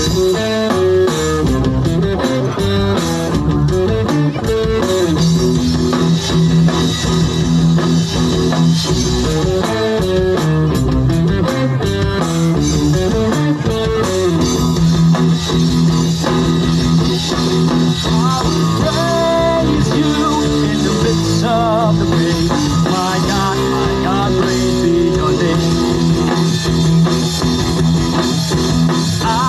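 Instrumental break of a rock song: a guitar plays a lead line with bent and wavering notes in the second half, over a steady bass and drums.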